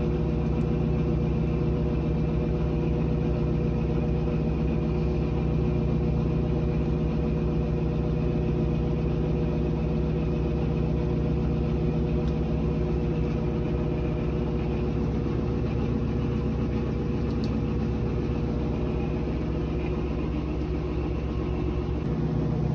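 Electric drain snake (auger) motor running steadily while clearing a clogged laundry-tub drain, a constant machine hum with no change in speed.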